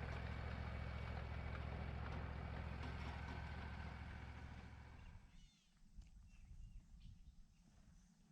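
Sawmill engine idling steadily, fading away about five seconds in, after which it is nearly silent with a few faint ticks.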